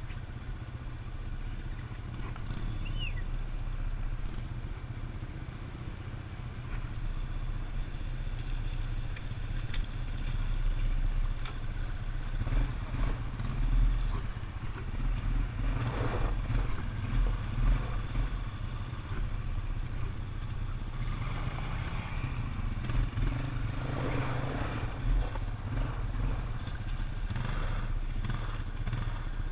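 ATV engine running while riding over humpy ground, its revs and loudness rising and falling in swells.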